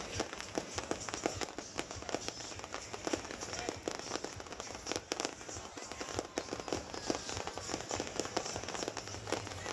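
Fireworks crackling: a dense, irregular run of sharp pops, several each second.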